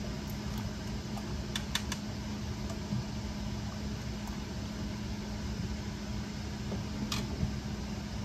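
A ladle clinks lightly against glass canning jars a few times while jelly is ladled in, two clinks close together about a second and a half in and another near the end, over a steady background hum.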